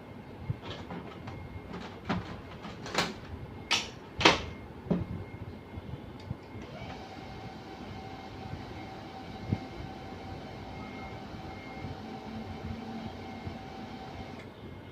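A few sharp clicks and knocks of the Canon LBP6000 laser printer being handled. About six and a half seconds in, its drive motor starts running steadily with a whine, turning the roller non-stop, and stops just before the end. This is the rotate-motor fault: the motor keeps turning instead of stopping.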